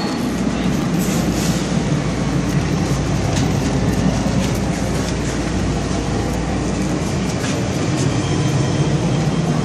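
WMATA Breda rehab metro car running at speed through a tunnel, heard from inside: a steady low rumble of wheels on rail, with a few faint clicks scattered through it.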